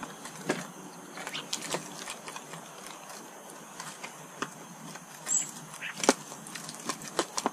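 Scattered sharp taps and clicks, the loudest about six seconds in, with a short high chirp about five and a half seconds in: small garden birds feeding and calling at a bird feeder.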